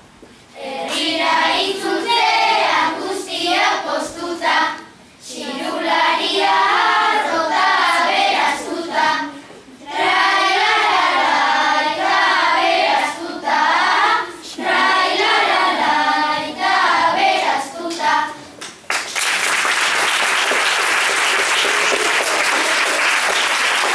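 Group of children singing together in phrases with short breathing gaps. About nineteen seconds in, the singing stops and the audience breaks into applause.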